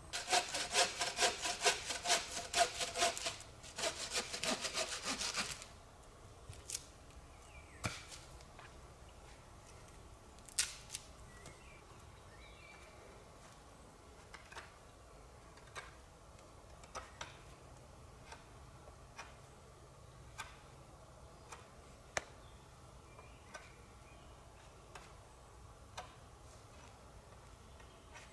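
Hand saw cutting through a wooden branch in steady back-and-forth strokes, about two a second, with a short pause about three seconds in; the sawing stops after about five and a half seconds. After that there are only scattered light clicks and knocks of wood being handled.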